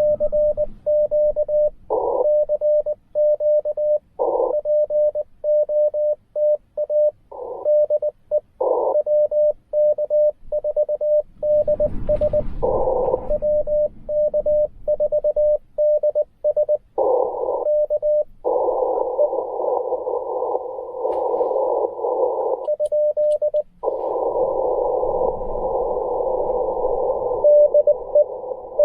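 Morse code on a Ten-Tec Argonaut V transceiver: its single-pitch sidetone keys out dots and dashes. This alternates with spells of hissing band noise from the receiver.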